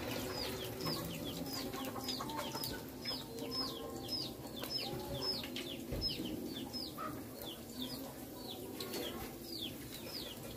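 A bird calling over and over in short, high chirps that each fall in pitch, about two to three a second, over a low steady background.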